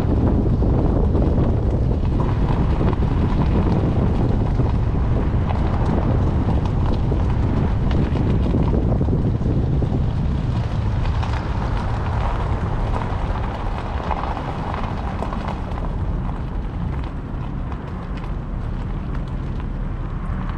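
Wind buffeting the microphone as it moves through open air, a heavy rumble that eases off about halfway through.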